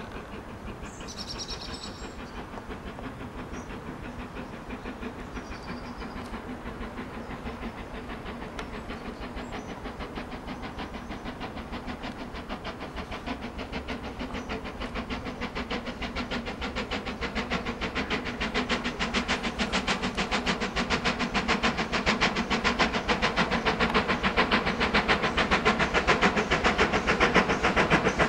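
GWR King class 4-6-0 steam locomotive No. 6024 King Edward I under steam with a passenger train, its exhaust beating in a rapid, even rhythm that grows steadily louder as it approaches.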